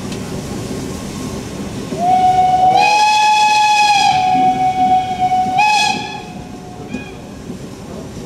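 Steam whistle of the class 52 steam locomotive 52 7596 sounding one long blast of about four seconds, its pitch stepping up slightly just after it starts and swelling briefly before it stops. The train's rumble runs underneath before the blast begins.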